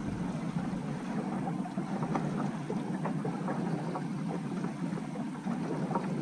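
Double-bladed kayak paddle stroking through creek water, with small splashes and drips over a steady low rushing noise.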